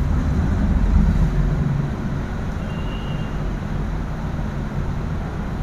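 Low, steady mechanical rumble, like road traffic or an engine, louder in the first two seconds. About halfway through, a brief faint high squeak of a marker on a whiteboard.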